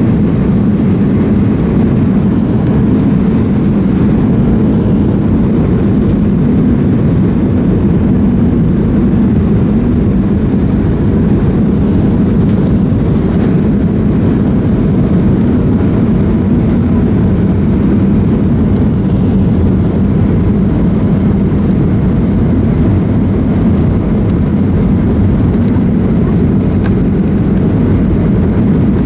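Steady cabin noise inside a Boeing 737-300: engine and airflow noise as a continuous low rumble that stays even throughout.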